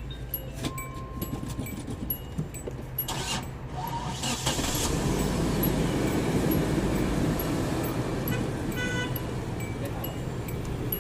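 An old minivan's engine running at idle, with metallic clinks of tools or parts over it in the first few seconds. About four seconds in, a louder rushing noise builds and holds for several seconds before easing off.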